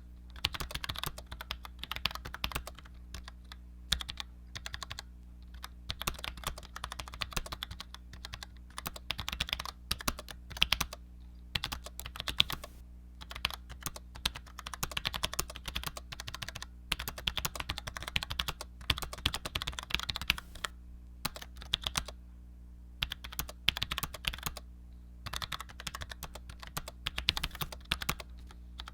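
Typing on a Cherry G84-4100 low-profile keyboard with Cherry ML key switches: fast runs of keystroke clicks in bursts, broken by brief pauses. A faint steady low hum runs underneath.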